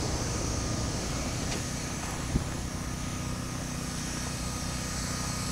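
Steady low rumble of a moving vehicle, with one sharp click a little over two seconds in.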